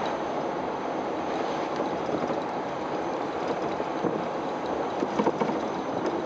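Steady tyre and wind noise from an electric Porsche replica car driving along a road, with no engine sound.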